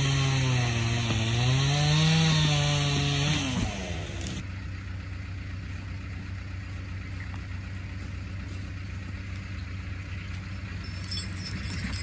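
Chainsaw running at high revs, its pitch sagging and picking up again as it works through wood, then released and winding down about three and a half seconds in. A fainter steady low hum remains after that.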